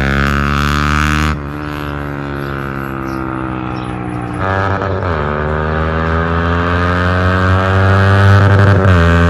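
Yamaha MT-15's 155 cc single-cylinder engine through a very loud aftermarket exhaust with no dB killer fitted, accelerating hard through the gears. The pitch climbs and drops at upshifts about a second in and again about four and a half seconds in, then climbs and grows louder, dropping once more near the end.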